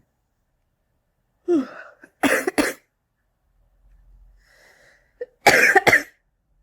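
Smoker's cough in two fits: a short voiced hack and two sharp coughs about two seconds in, then after a faint breath a quick run of several coughs near the end.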